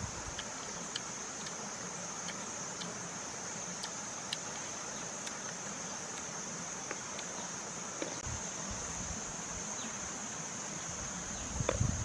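Steady high-pitched insect chorus, a constant shrill drone, with scattered faint ticks from leaves and berries being handled and a few louder soft knocks and rustles near the end.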